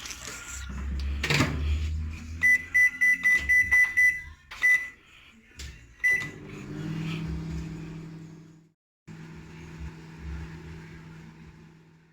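Microwave oven being set: a knock, then a quick run of short high keypad beeps and two more single beeps. After that the oven starts running with a steady low hum.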